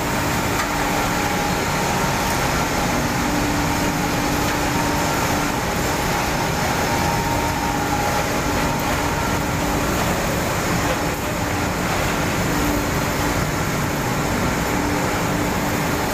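A textile-waste recycling line turning waste into cotton fibre, running steadily: an even, unbroken machine noise of rollers and motors, with a faint steady hum under it.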